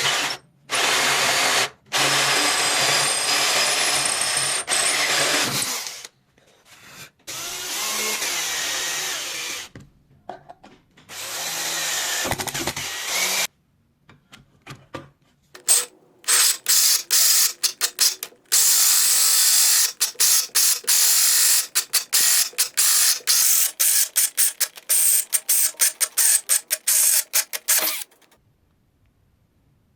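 Power drill driving a hole saw into wood, running in long runs that stop abruptly, then from about halfway through in many short, rapid stop-start bursts.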